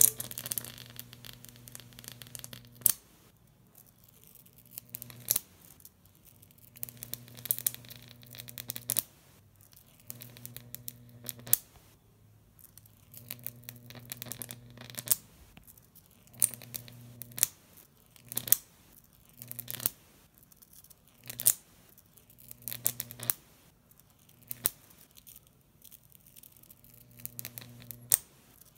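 Electric arc of a Jacob's ladder between two copper wires, fed by a homemade high-voltage supply with a MOSFET driver: a low buzzing crackle while the arc climbs, broken every second or two by a sharp snap as the arc breaks at the top and re-strikes at the base.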